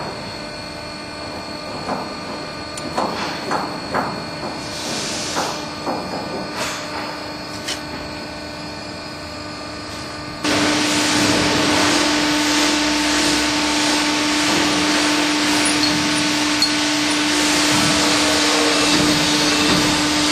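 Metal clanks and knocks as the container tilter's steel arm and pin are worked into a shipping container's bottom corner casting. About halfway through, a machine starts up suddenly and keeps running with a steady hum and hiss.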